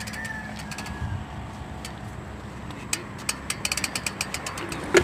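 Sagmit V12 rear hub's freehub clicking in short irregular runs of ticks as the bike coasts, ending with a louder click, over a steady low engine hum.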